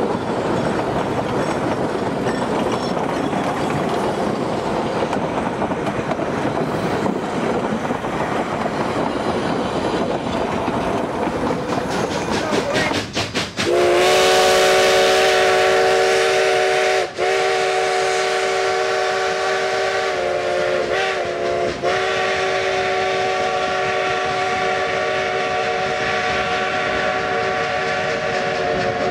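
Narrow-gauge freight cars rolling past, a steady rumble of wheels on rail. About halfway through, a steam locomotive's chime whistle starts, a long steady chord held on over the rolling noise with two short breaks.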